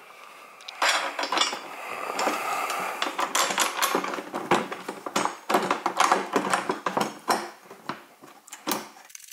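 Irregular small metal clicks and clinks as an M8 socket-head bolt and washer are handled and threaded by hand through a steel pannier rack bracket into its mount.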